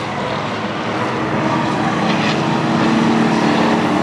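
Engines of several short-track stock race cars running at speed as the pack passes, growing louder toward the end.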